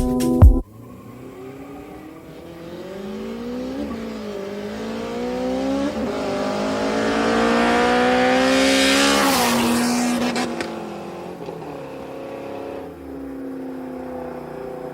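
Car engine accelerating, its pitch climbing for several seconds, loudest as it passes about nine seconds in, then falling away. The beat music cuts off about half a second in.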